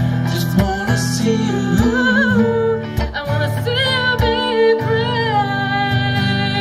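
Music: guitar accompaniment with a voice singing wordless held notes with vibrato.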